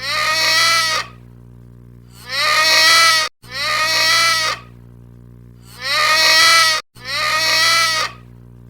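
Farm animal bleating: five loud bleats, each about a second long, with short pauses between them.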